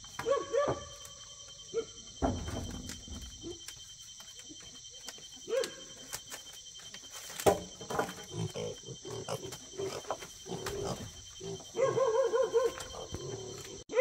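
Short, pitched animal calls, a few scattered through the first half and a quick run of repeated squeaky calls near the end.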